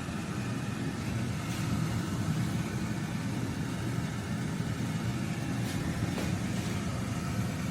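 Air fryer running, its fan giving a steady low whir, with a few faint ticks.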